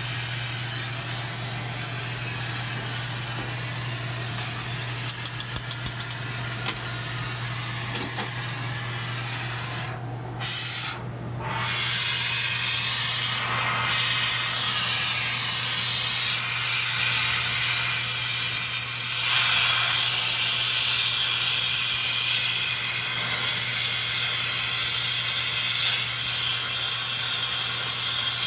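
Gas torch flame hissing steadily as it heats platinum in a casting crucible, over a low steady hum. There is a quick run of clicks about five seconds in and a short break around ten seconds; from about twelve seconds the hiss is louder and brighter as the flame plays into the crucible.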